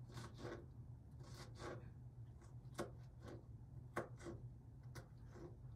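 Kitchen knife dicing a jalapeño pepper on a cutting board: soft, irregular chopping taps, about one every half second to a second, over a low steady hum.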